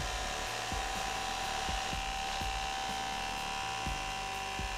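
Ryobi ONE+ HP 18V brushless compact 1/2-inch impact wrench hammering continuously under heavy load as it drives a large lag screw into wood, with a steady whine over the hammering.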